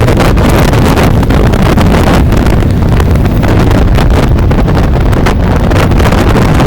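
Loud, steady wind buffeting on the microphone, a rumbling, fluttering rush that does not let up, as from riding at speed.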